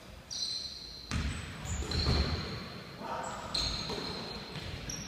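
Basketball being dribbled on a hardwood gym floor, with repeated low thumps, and sneakers squeaking in short high squeals as players cut and stop. Players' voices are heard between them.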